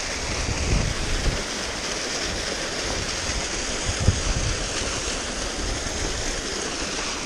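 Small mountain-stream waterfall splashing into a rocky pool, a steady rushing of water. A few low bumps sound about a second in and again around four seconds.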